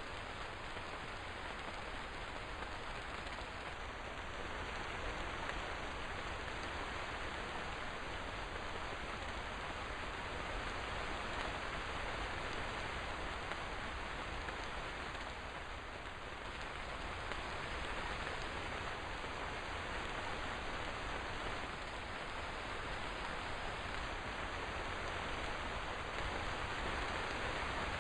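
Steady, even rain falling, a dense continuous hiss of raindrops.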